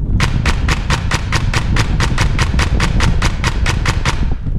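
Airsoft electric gun firing a long full-auto burst of evenly spaced shots, about seven a second, which stops shortly before the end, over a steady low rumble.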